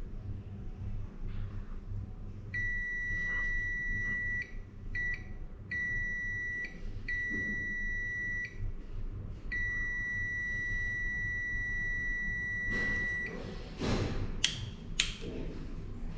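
Digital multimeter's continuity tester beeping: a steady high beep sounds about six times at irregular lengths, from brief blips to one nearly four seconds long. Each beep means the probes are touching a pair of switch wires with a complete path between them. Near the end, a few sharp clicks and rustles of the probes and wires being handled.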